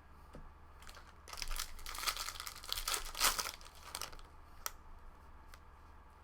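Foil trading-card pack wrapper crinkling and tearing as it is opened, for about three seconds, then a single sharp click.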